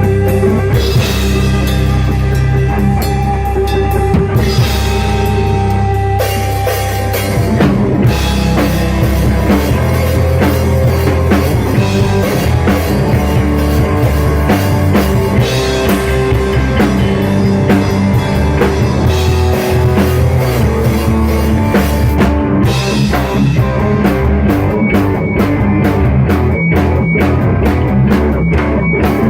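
Rock music with a full drum kit, bass and guitar playing steadily.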